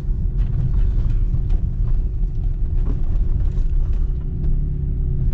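Engine and road noise of a 2000 Jaguar S-Type 3.0 V6 heard from inside the cabin while driving: a steady low rumble with a faint steady hum. The car is pulling sluggishly, as if the automatic transmission is starting off in third gear instead of first.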